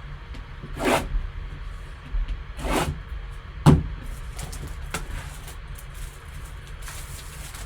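Cardboard card box and packaging being handled: a few brief rustling, sliding swishes and one sharp knock about three and a half seconds in, then softer scraping.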